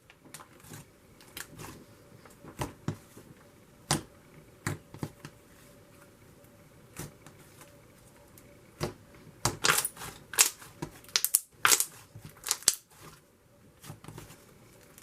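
Thick, glossy clay slime being poked, squeezed and stretched by hand, giving irregular sharp bubble pops and sticky clicks. The pops bunch into a louder cluster about two-thirds of the way through.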